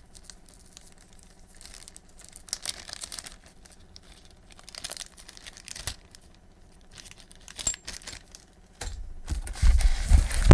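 Packaging being handled while parts are unpacked: plastic wrapping rustling and crinkling, with scattered light clicks and clinks. The handling grows heavier and louder near the end.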